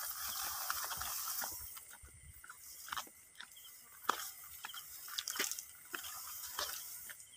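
Someone biting into and chewing a crisp guava: irregular crunches and small clicks.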